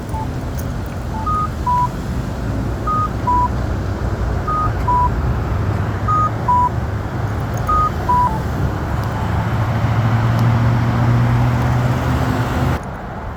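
A Campbell accessible pedestrian signal push button sounds a two-note falling beep, high then low, five times about every 1.6 seconds. The owner takes the button to be misprogrammed. Road traffic runs underneath, and a vehicle passes louder near the end.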